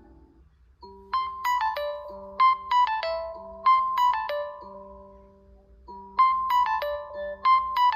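Realme C55 phone ringtone playing: a short melody of quick notes over low held notes starts about a second in, breaks off after a few seconds, and repeats the same phrase near the end. A previous ringtone is fading out at the very start.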